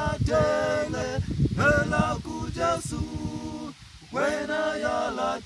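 Small male a cappella group singing in close harmony, in held-note phrases with a short break about four seconds in. A low, irregular rumble sits underneath during the first few seconds.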